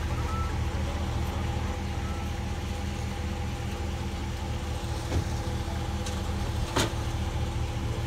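Engine idling steadily with a low, even hum, with two sharp knocks about five and seven seconds in.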